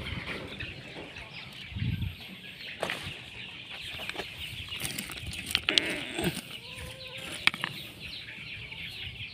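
Loose crushed stone being stepped on and shifted: scattered sharp clicks and scrapes of rock on rock over a steady high hiss.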